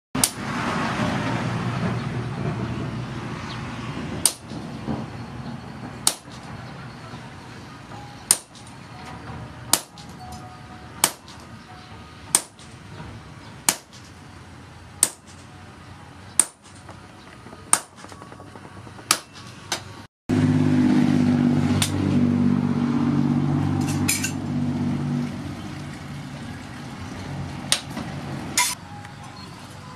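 Hand forging: a sledgehammer strikes red-hot rebar on a steel post anvil, sharp clanging blows about one every second and a half. The blows pause briefly about two-thirds through, under a low drone.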